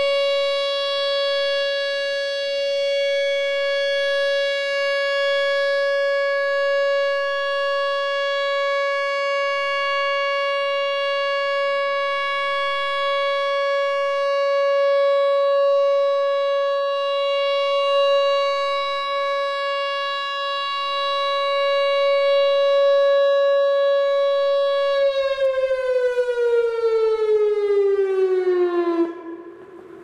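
Whelen WPS-2910 electronic outdoor warning siren sounding a steady tone during its monthly test, wavering slightly in loudness. About 25 seconds in it begins to wind down, the pitch gliding steadily lower until the sound cuts off sharply just before the end.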